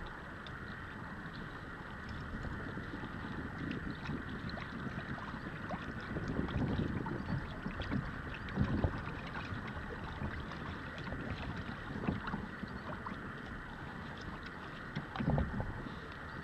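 Wind rumbling on the microphone in gusts over a steady hiss, with small splashes and water lapping against a kayak hull.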